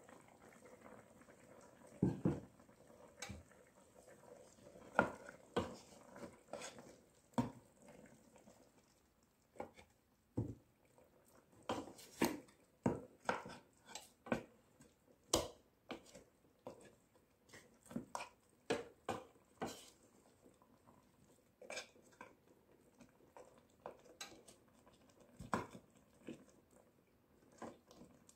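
Wooden spatula stirring chunks of meat in a metal cooking pot, knocking and scraping against the pot's side in irregular clacks about once or twice a second, starting about two seconds in.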